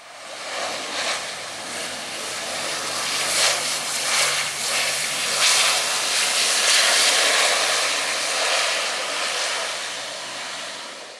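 ATR 72-600 twin turboprop, with Pratt & Whitney PW127-series engines and propellers, running at high power as it rolls past on the runway. The engine and propeller noise swells to its loudest about halfway through, eases a little, then cuts off suddenly at the end.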